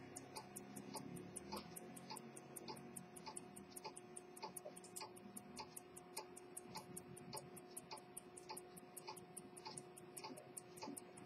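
Swiss quarter-repeater pocket watch's lever escapement ticking, fast and even and faint.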